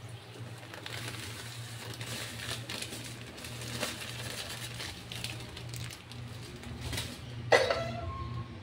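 Granulated sugar pouring from a plastic bag into a pan of milk mixture, with the soft hiss of falling sugar and the crinkle of the bag. Near the end comes a brief louder sound.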